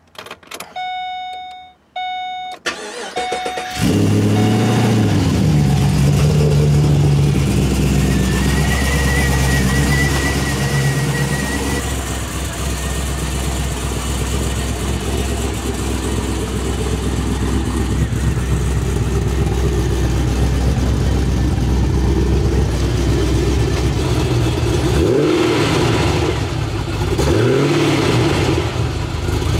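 Two short electronic chimes, then the 2008 Pontiac G8 GT's 6.0-litre V8 starting up about four seconds in and running at a fast idle that steps down to a lower steady idle. It is revved briefly twice near the end.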